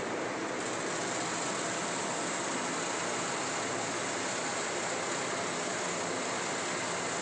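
Firecracker-making machine running with a steady, dense mechanical noise.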